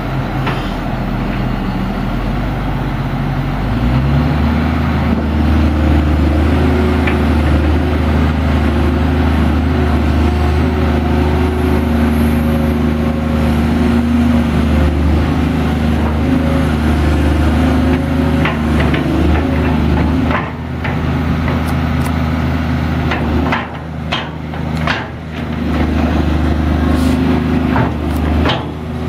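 Caterpillar 345BL Series 2 excavator's diesel engine running loud, its pitch stepping up about four seconds in as it revs and then holding steady, with the level dipping briefly a few times in the last third. Sharp knocks and clanks come in over the engine in the last third.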